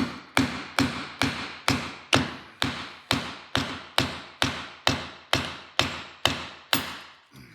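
Steady tapping on a block of wood held against a new slotted ABS reluctor ring, driving it onto a drive shaft's CV joint. The blows come evenly, a little over two a second, each with a short metallic ring.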